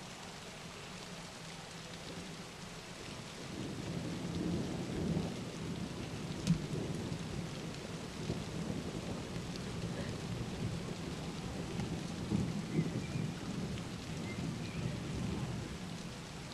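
Thunderstorm rain falling steadily, with a long roll of thunder that swells up about three to four seconds in and rumbles on in uneven surges.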